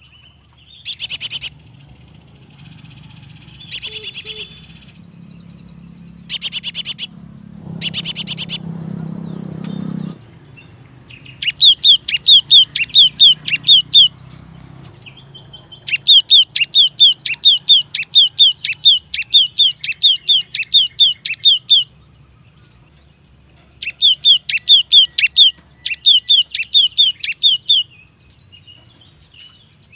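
Cinereous tit (gelatik batu) calling: four short harsh rattles in the first ten seconds, then three bouts of its quick repeated two-note whistled song, about three to four notes a second.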